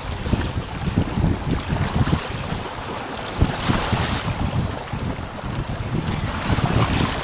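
Wind buffeting the microphone over the rush and splash of water along the hulls of a Hobie Adventure Island sailing kayak under sail, with a louder hiss of spray about four seconds in.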